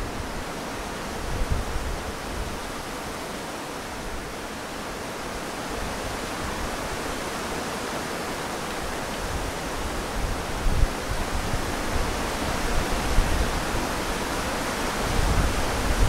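Wind blowing through willow trees: a steady rushing of leaves that swells in gusts and grows stronger in the second half. Wind buffets the microphone with low rumbles about a second and a half in, around ten seconds and near the end.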